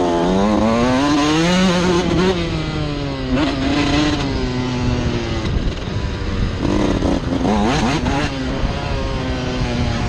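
Suzuki RM 125 two-stroke single-cylinder engine under load on a motocross track, revving up and dropping off the throttle in turn: the pitch climbs for about two seconds, dips, climbs again around four seconds in, eases off, then gives two short blips of throttle near the end.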